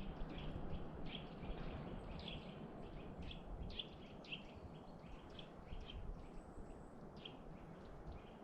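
Songbird giving short, high chirps, about two a second, over a faint steady low rumble.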